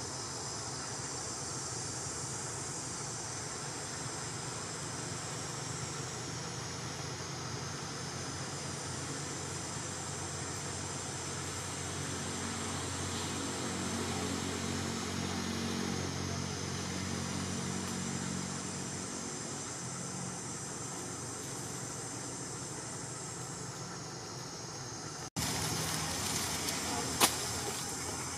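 Steady outdoor background of a high insect drone over a low engine-like hum, the hum louder around the middle. Near the end the background changes abruptly and a few sharp clicks follow.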